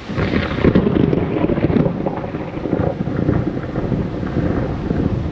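Thunder breaking in suddenly, with crackling over the first two seconds, then rolling on as a long rumble.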